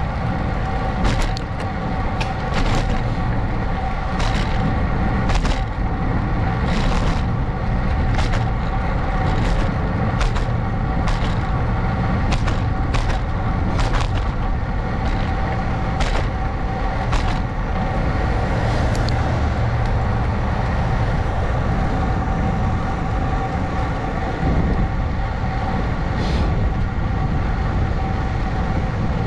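Wind buffeting an action camera's microphone on a moving ride, over a steady whine. A sharp tick comes roughly once a second through the first half or more, then only now and then.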